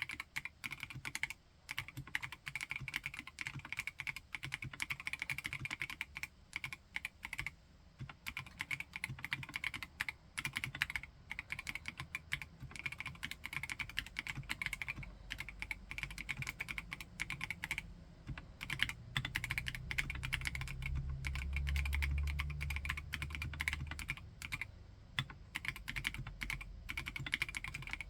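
Continuous typing on a HIBI June mechanical keyboard with a silicone housing, rapid key clicks in runs broken by a few short pauses. A low rumble comes in under the typing for a few seconds past the middle.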